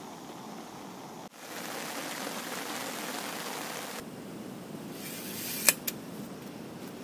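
Steady rush of river water, then, past the middle, a single sharp snap followed a moment later by a smaller click: a hunting slingshot rifle's rubber bands being released in a shot.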